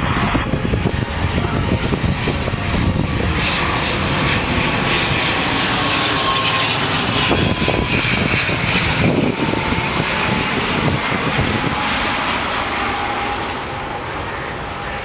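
Engines and propellers of an ATR 72 turboprop airliner on final approach as it passes close by: a loud, steady rush with a faint high tone that slides slightly lower in pitch. The sound eases off a little near the end.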